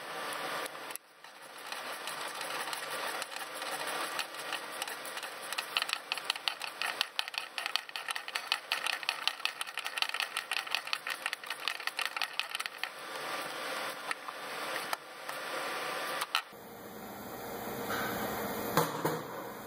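Ratchet clicking in fast runs as a socket on a long extension is turned to work a spark plug, with the densest clicking through the middle of the stretch.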